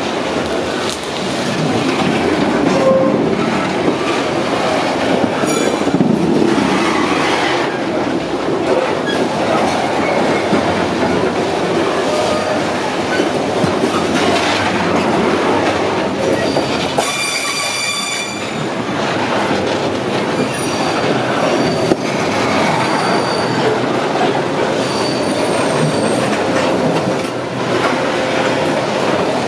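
Long freight train of covered hopper wagons rolling steadily past, its wheels running loudly on the rails. A few brief high-pitched wheel squeals cut in, the clearest a little over halfway through.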